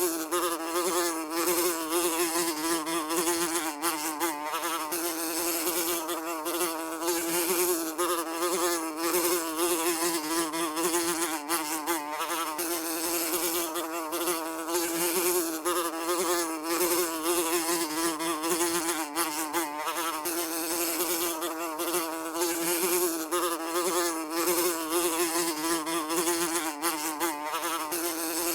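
Housefly buzzing continuously, a steady wing drone around a low hum whose pitch wavers slightly up and down.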